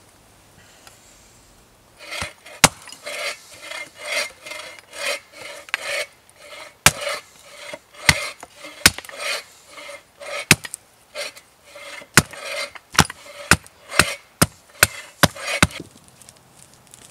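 A blade scraping and shaving wood in quick repeated strokes, with sharp knocks of the tool against the wood between them. It starts about two seconds in and stops shortly before the end.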